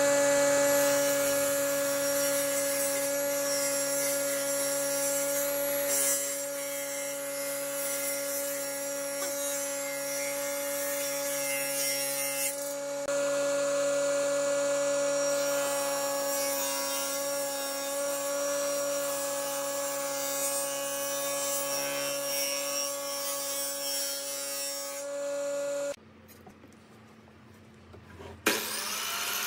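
Circular saw of a combination woodworking machine running with a steady, constant-pitch whine while pine boards are fed across its table. Near the end, after a short quiet gap, a miter saw's motor starts up with a rising whine.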